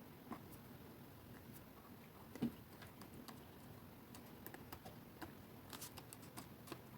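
Faint, scattered clicks and taps of cardstock being handled and pressed together by hand, with one slightly louder knock about two and a half seconds in and a run of small ticks near the end.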